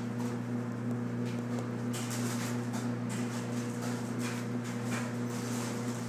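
A steady low hum, with a few faint soft scuffles of two cats wrestling on carpet.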